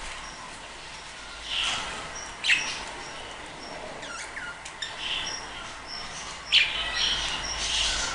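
A flock of budgerigars chirping and chattering, with short high chirps every second or so over a steady background of calls; the sharpest chirp comes about six and a half seconds in.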